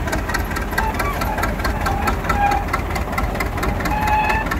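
ChTZ T-100M crawler bulldozer's diesel engine running steadily with a fast even clatter while the dozer pushes a heap of gravel chippings with its blade, with short high squeaks now and then.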